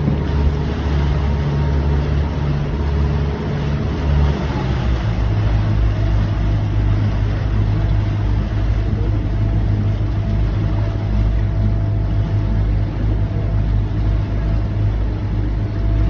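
Boat engine running steadily under way, with the wake's water rushing and churning behind the stern. About four to five seconds in, the engine note shifts to a slightly different steady drone.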